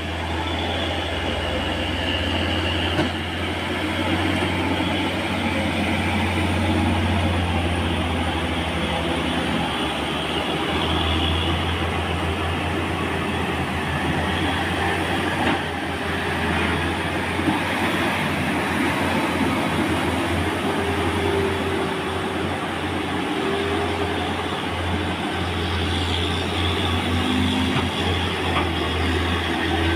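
Diesel engines of loaded Hino trucks labouring uphill under heavy load, a steady low rumble with the noise of passing traffic.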